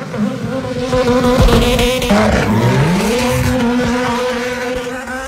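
Subaru WRX STI rally car's turbocharged flat-four engine running hard while the car drifts, with tyre squeal. About two seconds in the revs drop, then they climb back up and hold steady.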